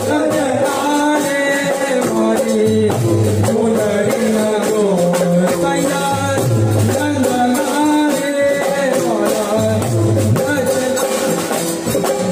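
Live Gujarati raas kirtan music: an electronic keyboard plays the melody over a drum kit, with a bright, fast rattling percussion and singing on top.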